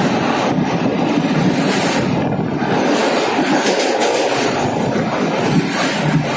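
Steady, loud rumble of a passenger train running through a tunnel, heard from on board: wheels on the rails and running noise, with no pauses.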